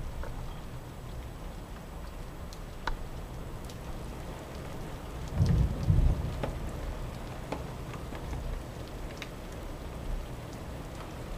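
Steady rain during a thunderstorm, with single raindrops tapping close by and a low rumble of thunder underneath that swells briefly twice about halfway through.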